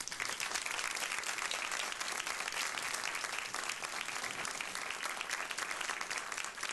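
Studio audience applauding steadily: a dense patter of many hands clapping, welcoming a panel.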